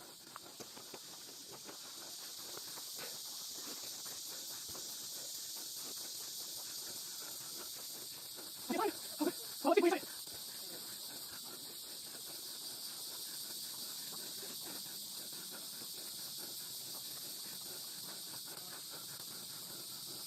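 Steady high-pitched chorus of insects in summer woods, with three short voiced sounds, a voice or an animal call, about nine to ten seconds in.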